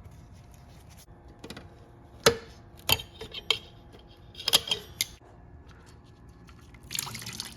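A few sharp metallic clinks and knocks of tools and parts being handled on a motorcycle, with a quick cluster about four and a half seconds in. Near the end a rush of pouring liquid starts.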